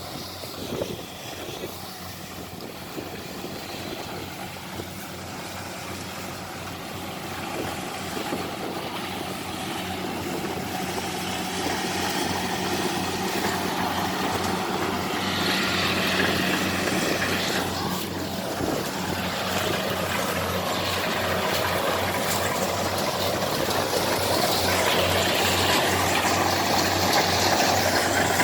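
Kubota 70 rice combine harvester's diesel engine running steadily with a low hum and machinery clatter, growing gradually louder.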